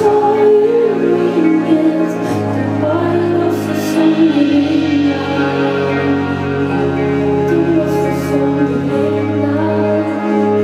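Live pop band playing a slow song, with a woman singing over held bass notes that change every two seconds or so.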